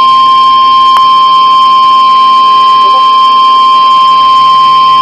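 NOAA Weather Radio's 1050 Hz warning alarm tone, a loud, steady single-pitch tone signalling an incoming tornado warning broadcast.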